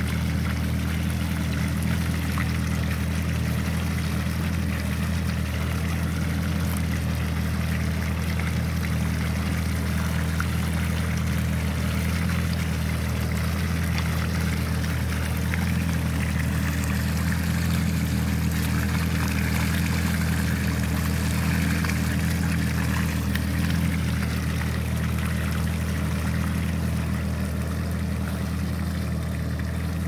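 Tractor engine running steadily while liquid cattle manure pours and splashes out of a tanker's rear spreader bar onto the soil.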